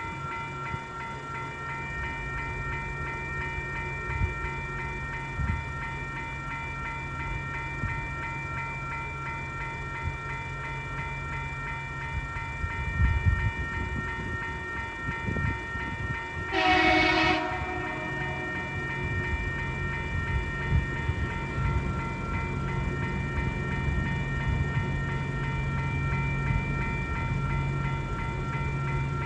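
Level crossing warning bell ringing steadily over the low, steady sound of an approaching diesel locomotive's engine. About two-thirds of the way through, the locomotive's horn sounds one short blast.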